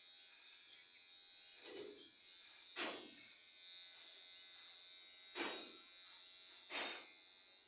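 Electric hair clipper running with a steady high-pitched hum, and four short, louder swells as it passes through hair.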